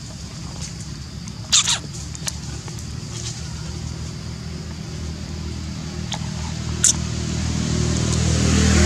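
A low, steady motor hum that grows louder toward the end, like an engine drawing closer. Two sharp, high clicks or squeaks come through it, one about a second and a half in and one near seven seconds.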